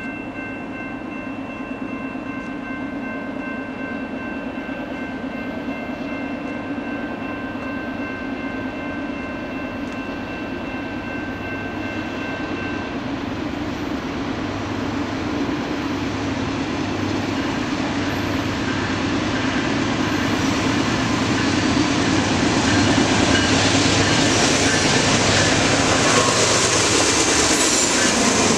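Norfolk Southern diesel freight train approaching and passing: the locomotive's engine rumble and wheel noise grow steadily louder, loudest in the last few seconds as the locomotive goes by.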